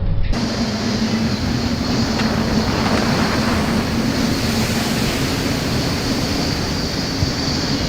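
Storm wind and rough sea with a steady low mechanical hum, such as a ship's engine, running underneath.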